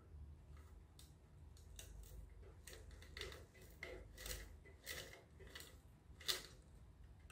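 Faint clicks and scrapes of a 3D-printed plastic mousetrap car being wound up by hand, its drive string wrapped onto the rear axle by turning the CD wheel. A run of small clicks starts about two seconds in, with one sharper click near the end.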